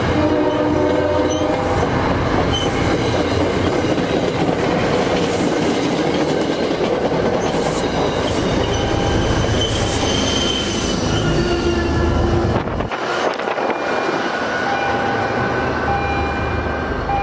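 MBTA commuter rail coaches passing close by at speed: a loud steady rumble and rush of wheels on the rails, with thin high tones and a few faint clacks over it. The rumble drops off sharply about 13 seconds in as the last car clears, and thin steady high tones linger.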